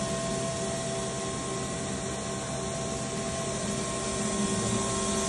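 Steady machine hum in a machine shop: an even mechanical hiss with several constant whining tones underneath.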